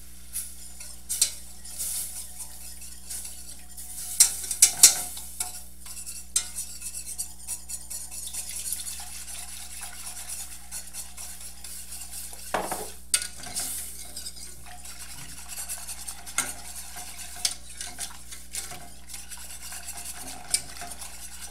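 Wire whisk stirring milk into a butter-flour roux in a stainless steel saucepan, with irregular clinks and scrapes against the pan and a light sizzle; the sharpest clinks come about four to five seconds in.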